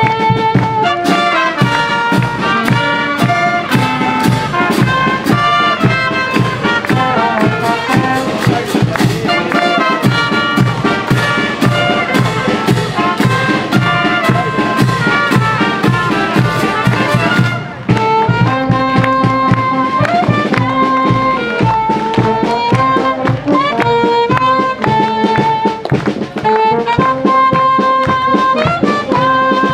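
Brass music: trumpets and other brass playing a melody over a steady beat, with a brief break about two-thirds of the way through.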